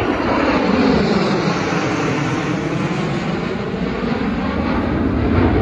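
Jet engines of a four-ship formation of military display jets flying past trailing smoke: a loud, steady rumble whose tone sweeps slowly as they pass.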